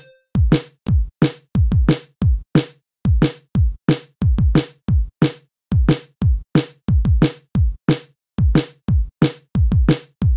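Background music: an electronic drum-machine beat of kick and snare hits at a steady, even pace.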